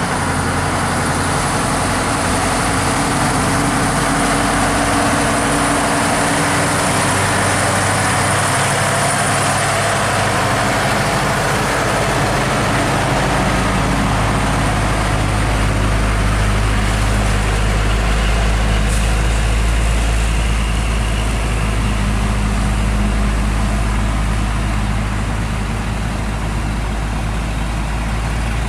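Heavy truck's diesel engine running steadily under load; its low rumble grows noticeably stronger about halfway through.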